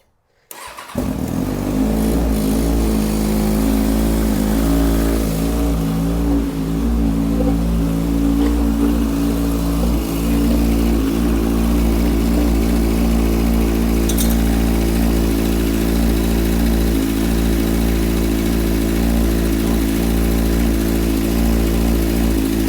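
2003 Kawasaki ZX6R 636 inline-four engine starting about a second in, then idling steadily. It is running just after an oil change with no oil pressure yet, which the owner puts down to air trapped in the oil system.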